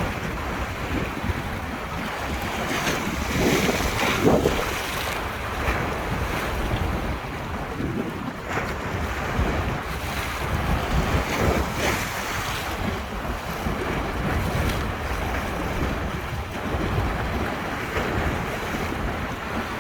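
River waves washing and splashing against the bank in strong wind, with heavy wind rumble on the microphone. The wash swells louder a few times, around four and twelve seconds in.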